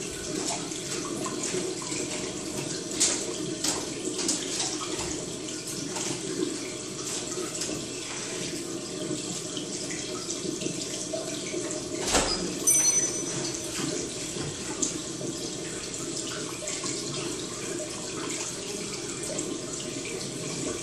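Steady sound of running water, with scattered light clicks and a louder knock about twelve seconds in.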